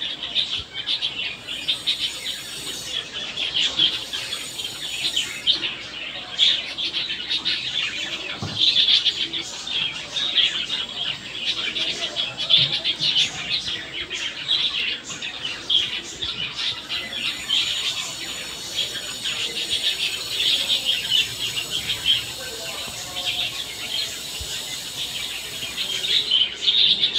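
Birds chirping constantly, many short chirps overlapping into a steady chatter.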